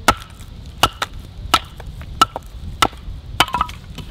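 Hatchet chopping into a piece of firewood: six sharp strikes of steel into wood, about two-thirds of a second apart.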